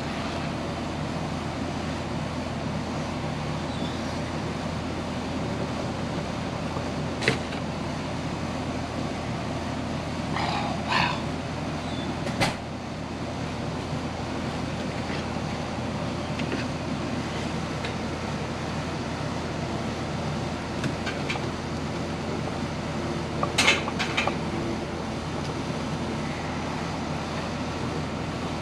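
Steady background hum and hiss, as from a running motor or traffic, with a few sharp clicks and knocks scattered through it.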